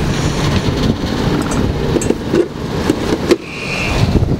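Boat engine running, with wind noise on the microphone, and one sharp knock about three seconds in.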